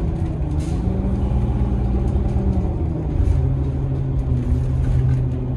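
2003 New Flyer diesel city bus heard from inside the cabin while under way: a steady engine and drivetrain drone with road rumble. The engine note steps down in pitch about three seconds in.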